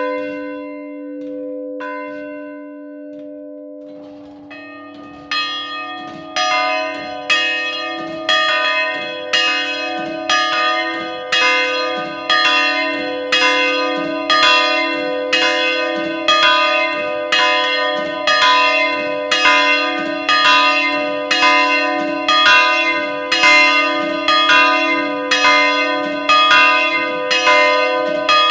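Two church bells swinging in their belfry, heard up close, with the clappers striking in a steady peal and each stroke leaving a long ringing hum. The ringing first dies down, then a new peal starts about four seconds in and quickly settles into even strokes, a little faster than one a second.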